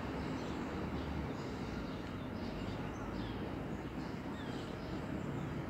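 Steady low rumble of a Class 66 diesel freight locomotive's two-stroke V12 engine and its wagons, receding into the distance. Small birds chirp several times over it.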